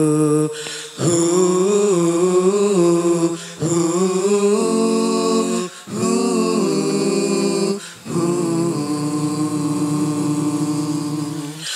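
Nasyid vocal group singing a cappella, opening a song with long held notes in several phrases separated by brief breaks.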